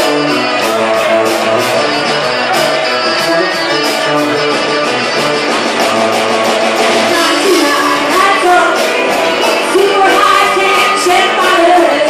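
Live band playing with a steady beat: guitars, keyboard and drums, with a woman's lead vocal coming in about halfway through.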